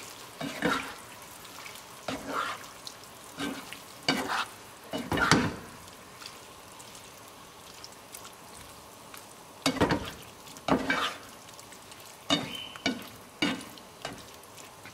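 A spatula stirring and scraping through a thick, simmering curry in a frying pan, in about ten short, irregular strokes with a pause midway, over a faint steady hiss.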